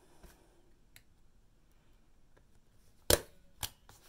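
Hand staple gun fired into a wooden stretcher bar: one sharp snap about three seconds in, then a smaller click. The staple did not go in at all.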